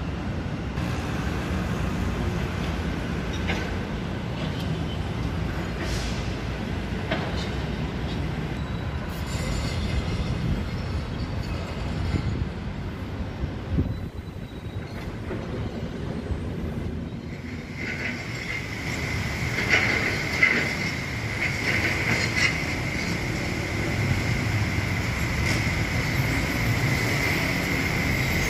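MRT Blue Line metro train approaching along the elevated viaduct: a low rumble, joined about two-thirds of the way in by a steady high-pitched whine that holds to the end.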